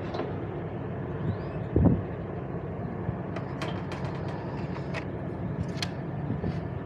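Steady hum of running air-conditioning equipment, with a loud thump about two seconds in and several sharp clicks later on as tools and fittings are handled.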